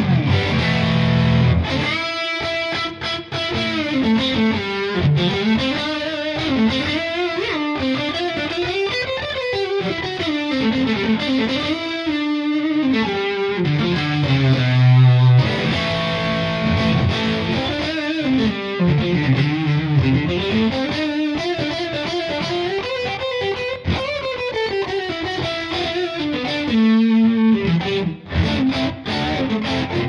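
Squier Bullet HSS electric guitar played with distortion through an effects unit: fast lead runs of single notes climbing and falling, with a few held low notes between phrases.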